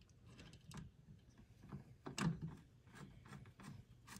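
Hand screwdriver driving a screw into a speaker's metal frame, with faint irregular clicks and scrapes. The loudest click comes about two seconds in.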